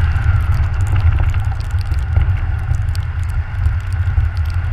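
Nissan Juke's turbocharged four-cylinder engine and tyres running at low speed over snow-covered ice: a loud, steady low rumble, with small clicks scattered throughout.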